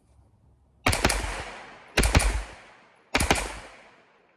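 Home-built 9mm AR9 pistol firing semi-automatic: three quick strings of shots about a second apart, each string two or three rounds close together, each followed by a fading echo.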